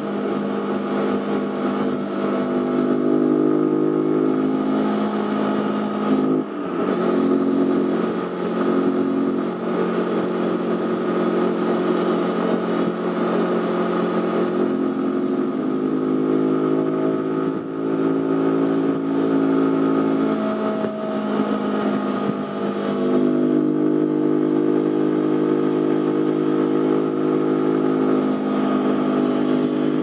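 Zontes G1 125's single-cylinder engine pulling the bike along at fairly steady revs, the engine note breaking briefly about six seconds in and changing pitch again a little after twenty seconds. Wind rush over the microphone lies under it.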